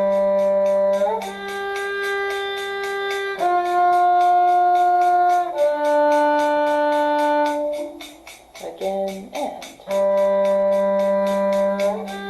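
A bowed string instrument playing a slow shifting drill of four held notes, G, G, F and D, each about two seconds long. After a short break with brief sliding sounds, the pattern begins again near the end.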